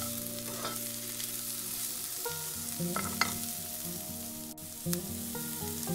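Butter sizzling in a frying pan as broccoli florets are stirred with a metal spoon, the spoon scraping and clinking against the pan a few times.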